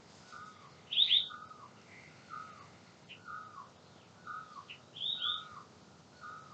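Birds calling: one repeats a short falling note about once a second, while another gives a louder, sharp double chirp twice, about a second in and again about five seconds in.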